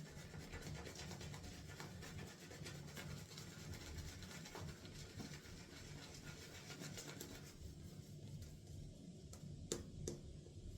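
Faint scratching and rubbing of a shaving brush working dense soap lather. It stops about three quarters of the way through, leaving a quieter stretch with two sharp clicks near the end.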